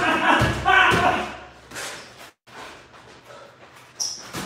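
Sparring boxers' gloves landing punches, a few sharp thuds. A loud voice rings out over the first second.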